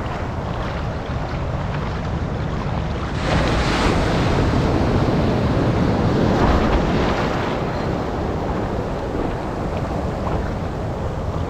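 Ocean surf with wind buffeting the microphone; a wave breaks about three seconds in, a louder rushing wash that lasts several seconds before settling back.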